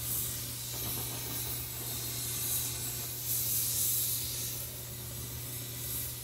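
Oxy-fuel cutting torch flame hissing steadily as it is played around a steel ring gear, heating the gear so it expands for a shrink fit. The hiss swells and eases as the flame moves around the ring.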